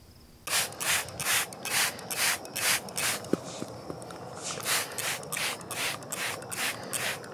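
Hand-held trigger spray bottle spritzing water onto a hiking shoe in quick pumps, about two to three short hissing sprays a second, with a brief let-up in the middle.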